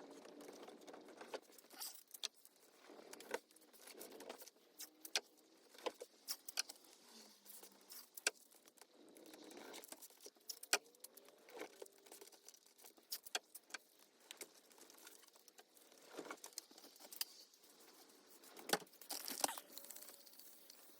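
Irregular small clicks, taps and light rattles of objects being handled, over a faint hiss.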